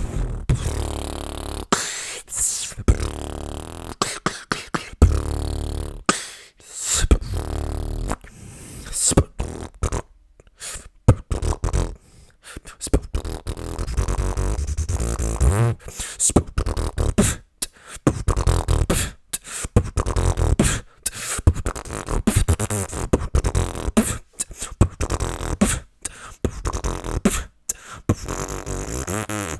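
Freestyle beatboxing into a close microphone: mouth-made drum hits and sharp snare and hi-hat sounds over deep, held bass tones, with a short break about ten seconds in.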